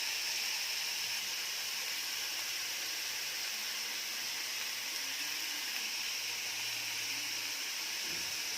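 Sliced snake gourd sizzling steadily in hot mustard oil in a pan, a constant even hiss.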